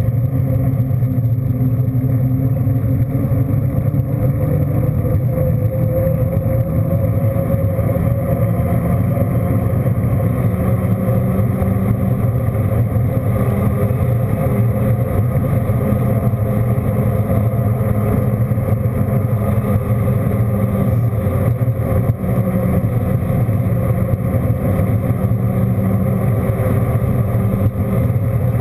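A vehicle under way at a fairly steady speed: a continuous engine hum with road noise, its pitch drifting slowly up and down.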